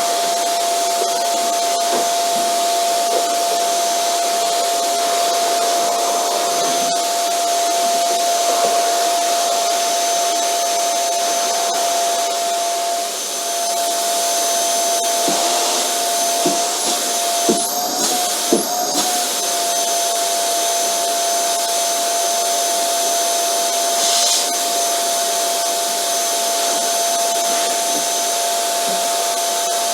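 Vacuum cleaner running steadily: a loud rush of air over a steady motor whine. A few short knocks and a brief wobble in the whine come partway through.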